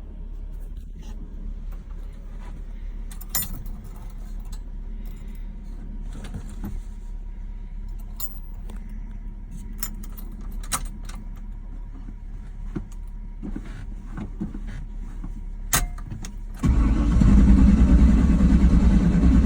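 Faint clicks and rattles over a low steady hum, then, about three seconds before the end, a rebuilt Chevrolet 350 small-block V8 is suddenly and loudly cranked by its starter. It turns over without firing: the engine cranks but won't start.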